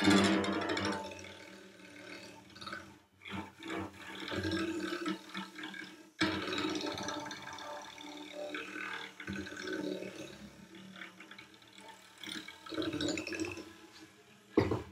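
Cello strings worked with a small handheld tool with a blue brush tip instead of a bow: irregular scratchy, rushing swells with faint held pitches beneath, and a short sharp burst near the end.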